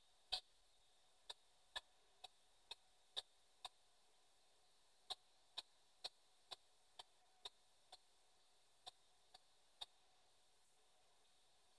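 P-SB7 spirit box sweeping through radio stations, played through a small external speaker as faint, short clicks, roughly two a second with a couple of short pauses; no voices or static come through between them.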